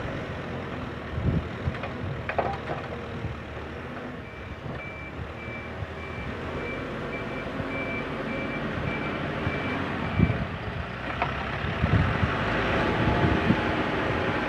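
Diesel engine of a JCB 3CX backhoe loader working steadily, with a reversing alarm beeping at one pitch about twice a second for several seconds in the middle and a couple of metal clanks.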